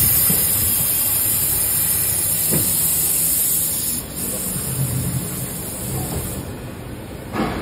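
Injection moulding machine running with a steady hiss and low hum, loudest for the first four seconds and then quieter, with a brief knock near the end.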